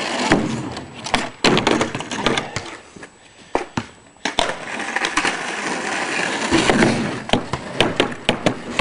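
Skateboard wheels rolling on pavement, with sharp clacks of the boards hitting the ground as the skaters try tricks. The rolling dies down about three seconds in, picks up again, and ends in a run of clacks.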